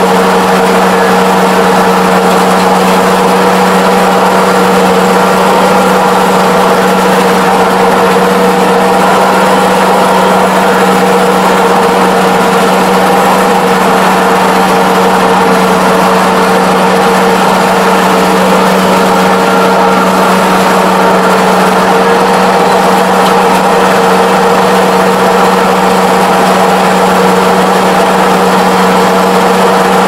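Kubota ARN460 rice combine's diesel engine and harvesting machinery running steadily under load while cutting rice, heard from inside the cab: a constant loud drone with a steady low hum.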